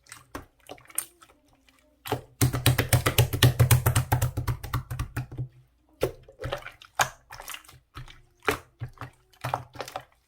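Clear slime being worked by hand with small round beads mixed in, giving sharp clicks and crackles. A dense run of rapid clicks comes about two and a half seconds in and lasts about three seconds, with scattered single clicks before and after it.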